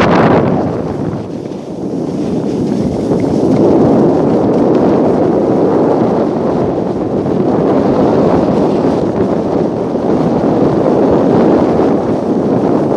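Steady wind noise buffeting a phone's microphone as the skier carrying it glides downhill, with a brief louder gust at the start.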